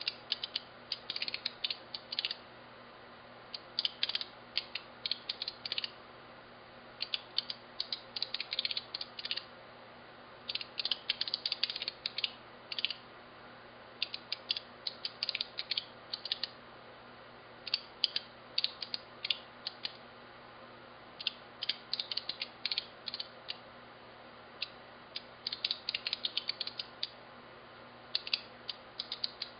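Signalex electromagnetic flip-segment seven-segment displays clicking as their magnetic vanes flip one segment at a time. The clicks come in quick runs of a second or two, with short pauses between runs, as new numbers are written across the six digits.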